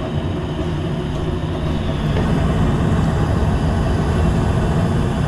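Steady low mechanical rumble, a running machine or motor, getting a little louder about two seconds in.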